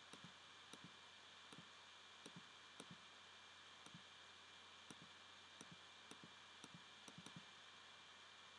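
Faint computer mouse clicks, irregularly spaced and often in quick pairs, over a low steady hiss: the clicks place the points of a polygonal lasso selection.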